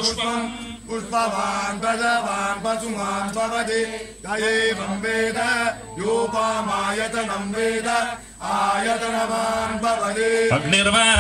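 A Hindu priest chanting Sanskrit mantras into a microphone in a steady sing-song recitation, in phrases of a couple of seconds with short breaths between them.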